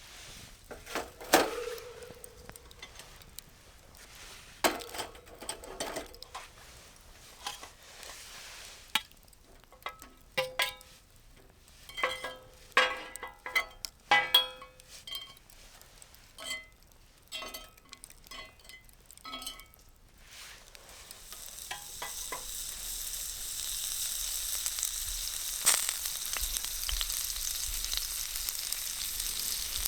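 Scattered metallic clinks and knocks of utensils against a skillet, some ringing briefly, then food starts sizzling in the hot skillet about two-thirds of the way in, a steady hiss.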